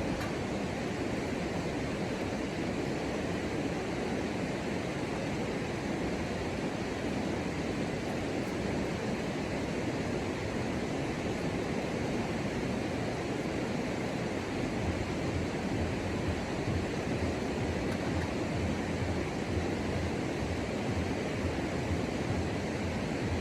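Steady, even rushing noise of outdoor jungle ambience, with no distinct calls or events.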